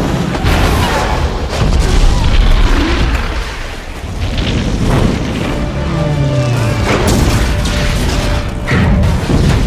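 Film battle sound mix of bomb and ship explosions: a string of heavy booms over a continuous low rumble, the loudest about two seconds in, with music underneath.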